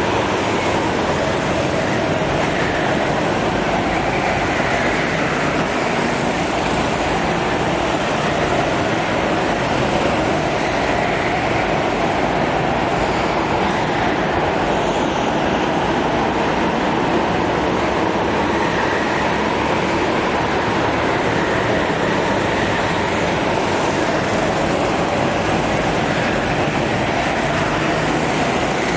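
Several go-kart engines running together around an indoor track in a large hall. It is a continuous, steady drone whose pitch swells and fades as karts pass and accelerate.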